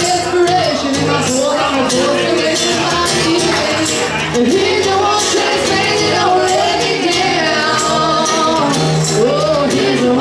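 Live acoustic band playing a song: strummed acoustic guitar and sung vocals over hand percussion ticking out a steady beat.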